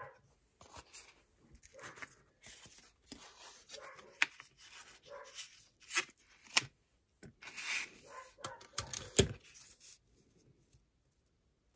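Dogs barking off and on, mixed with the rustling, rubbing and tapping of glitter paper being handled and pressed down on a cutting mat.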